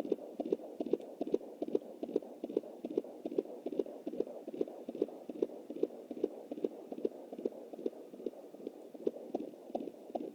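Fetal heartbeat at 20 weeks played through a handheld Jumper fetal Doppler: fast, even beats, about two and a half a second (roughly 150 a minute), over steady noise.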